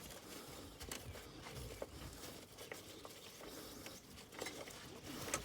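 Faint handling noises from the engine compartment as the oil is checked: a few light clicks and taps with soft rustling.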